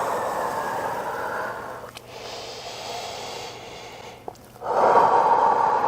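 A woman breathing deeply through a stretch on cue: a long, heavy breath out, a quieter breath in, then a second long breath out about four and a half seconds in.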